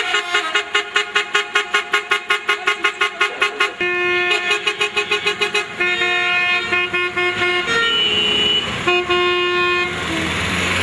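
Horns of a truck convoy honking together: first a rapid string of short toots, about six a second, then long blasts on several different pitches that overlap and break off and start again. Near the end the horns give way to a rushing traffic noise.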